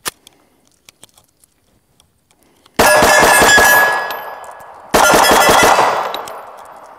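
Glock 19 Gen 5 9mm pistol fired very fast from an extended magazine in two strings of shots, each about a second long, the first about three seconds in and the second a second after it. Steel targets ring under the hits, and the ringing fades after each string.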